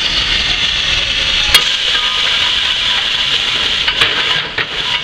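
1916 Erie Type B steam shovel working with its dipper raised: a steady hiss of steam from the machine, with a sharp clank about one and a half seconds in and a few lighter knocks near the end.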